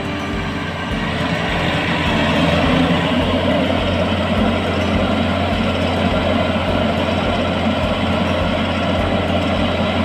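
Yanmar YH850 rice combine harvester running: a steady diesel engine and machinery drone that grows louder about two seconds in as the machine comes up close, then holds steady.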